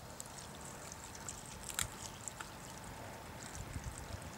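Cold water being poured into a cooking pot, a steady pouring sound with a couple of sharp clicks.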